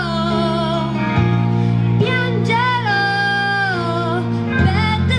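A girl singing through a microphone and PA speaker over a recorded backing track, holding long notes with vibrato; one phrase ends about a second in and a new one starts about two seconds in.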